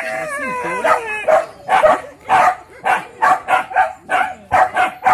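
Leashed hunting dog barking rapidly and repeatedly, about two to three barks a second, after a high wavering whine in the first second. It is being worked up against a piglet in pig-hunting training, so this is a dog baying at its quarry.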